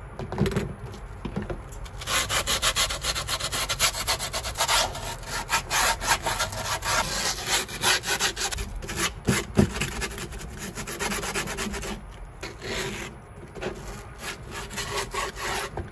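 A folded scrap of griptape rubbed quickly back and forth along a skateboard deck's edge, filing down the edge of freshly applied clear griptape. The strokes come thick and fast from about two seconds in and thin out to scattered rubs after about twelve seconds.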